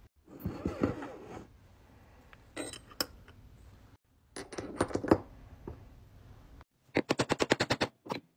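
Metal clinks and knocks of a coin-ring die and a coin being handled on a steel bench plate, in several short groups, ending in a quick even run of about ten clicks near the end.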